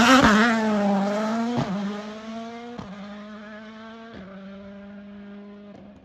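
Ford Puma Rally1 rally car's 1.6-litre turbocharged four-cylinder launching from the stage start and accelerating away. It changes up through the gears three times and fades steadily as it pulls into the distance.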